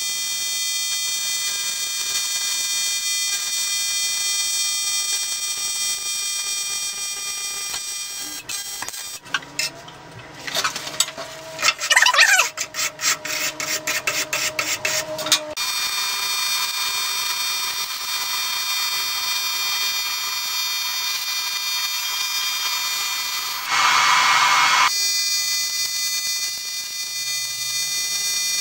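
AC TIG arc on aluminium buzzing steadily during welding. In the middle the arc stops for a few seconds of quick, regular wire-brush strokes scrubbing the aluminium, then the arc buzz resumes and swells louder for about a second near the end.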